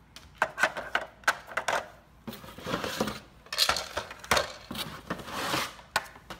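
Hard plastic pieces of a Trixie Activity Poker Box dog puzzle clicking and clacking as they are handled and set onto their tray, a string of sharp knocks. About two seconds in, this gives way to crinkling and rustling of torn gift wrapping paper as a beagle puppy noses through it, with a few more clicks.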